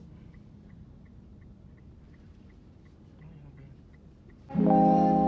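Faint, even ticking, about three clicks a second, typical of a car's turn-signal indicator while parking. About four and a half seconds in, loud music with sustained keyboard chords cuts in.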